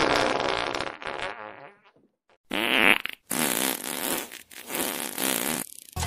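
Three farting sounds in a row, each with a wobbling, buzzing pitch: the first trails off over about two seconds, a short sharp one follows, then a longer one.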